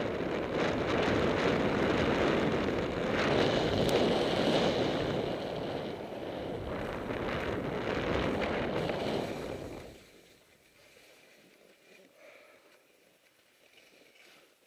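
Wind buffeting the microphone of a skier's helmet or chest camera, mixed with the hiss of skis sliding over snow on a fast downhill run. About ten seconds in the noise cuts off sharply to a faint hush.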